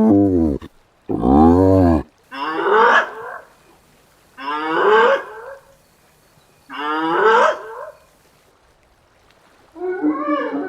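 Hyena calling in a series of long, low whoops. The first two fall in pitch, and the next three each rise, coming about two seconds apart. Near the end a denser, overlapping calling begins.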